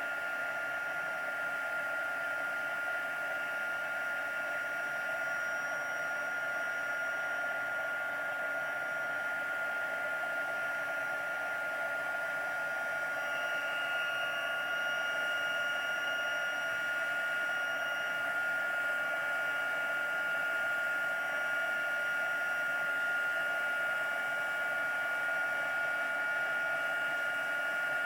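Craft heat gun running steadily, a constant airy hiss with a steady high whine, drying damp paper pages.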